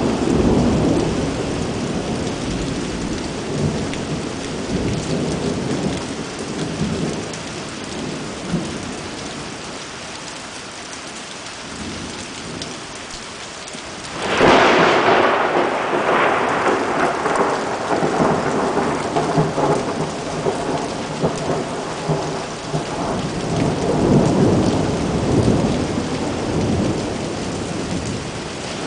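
Heavy rain pouring onto a flooded street, with thunder. A low rumble dies away at first. About halfway through a sudden sharp thunderclap rolls on for several seconds, and another rumble swells near the end.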